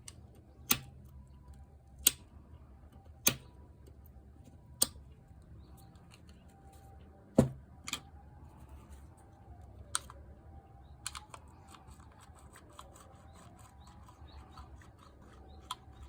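Sharp clicks and knocks of metal tool and machine parts being handled and set down during a disassembly: five loud ones a second or so apart, then a few lighter clicks and a quick run of small ticks.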